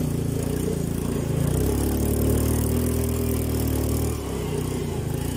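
ATV engine running steadily, getting a little louder partway through and easing off about four seconds in.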